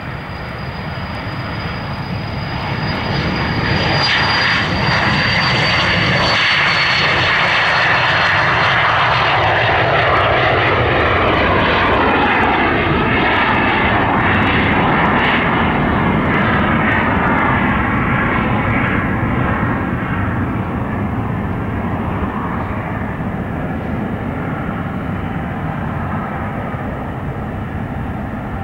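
Cessna Citation CJ3 business jet's twin Williams FJ44-3A turbofans at takeoff power. A high whine drops in pitch as the jet rolls past, about four seconds in, over a steady loud jet rush. The sound then slowly fades as the jet climbs away.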